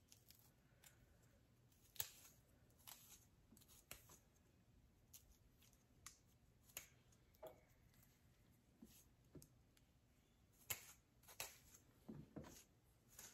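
Near silence broken by scattered faint clicks and rustles: a plastic rat-tail comb working through hair and hands handling the hair.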